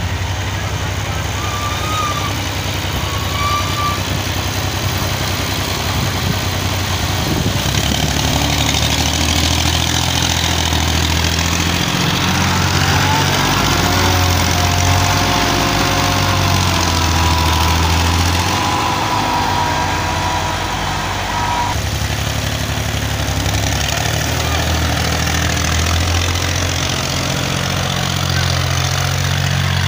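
Farm tractor's diesel engine running under load as it drags a rear-mounted steel levelling blade through loose soil, its note rising and falling. A thin whine joins in about halfway through and cuts off suddenly some eight seconds later.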